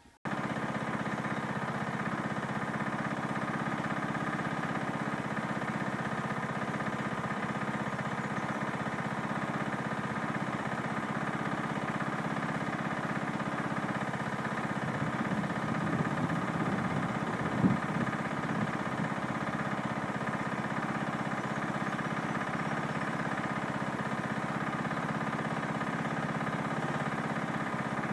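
Steady mechanical drone, like an engine or motor running, holding the same pitch throughout. A few low thumps come a little past halfway, one sharper knock among them.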